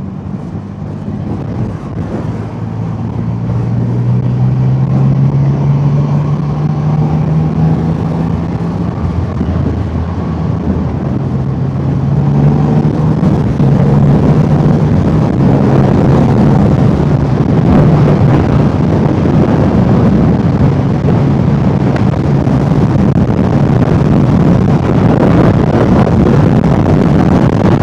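Triumph Rocket 3 motorcycle's 2.5-litre inline-triple engine running at highway speed, heard from the rider's position with heavy wind rush on the microphone. The sound grows louder over the first few seconds, dips briefly about ten seconds in, then holds steady.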